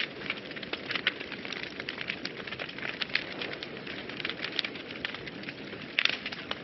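Wood fire burning in a fireplace, crackling and popping steadily over a soft hiss, with a brief burst of louder pops near the end.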